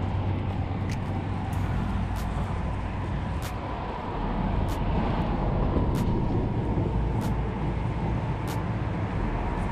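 Steady rumble of road traffic on a highway bridge, with light ticks recurring about every second and a quarter.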